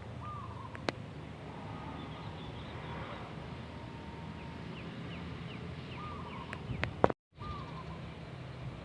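Wild zebra dove (perkutut) cooing, of the voice type fanciers call bedah karang: short arched notes near the start and again around six and seven and a half seconds. Beneath it runs a steady low rumble, with a sharp click about a second in and a louder one near seven seconds, followed by a brief dropout.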